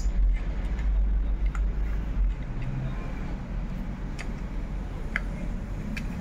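A few small metallic clicks as a handheld rivet nut setting tool is handled and a rivnut is threaded onto its mandrel, over a steady low rumble that is strongest in the first two seconds.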